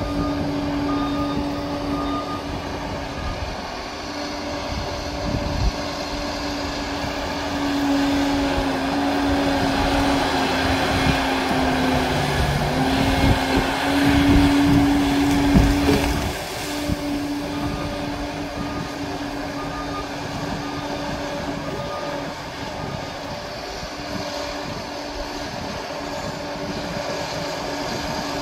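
Liebherr PR 746 crawler dozer's diesel engine running steadily, working harder and getting louder and rougher for about eight seconds in the middle as it pushes under load.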